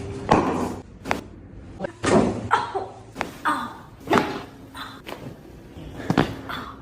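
Chiropractic adjustment on a treatment table: a series of sharp thumps and knocks, about ten spread over several seconds, some followed by a short rustle.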